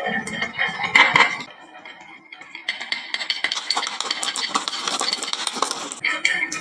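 Music ends in the first second or so; after a short lull, marbles clatter down a wooden marble run slope and into a toy truck, a dense rapid run of small clicks and knocks lasting about three seconds.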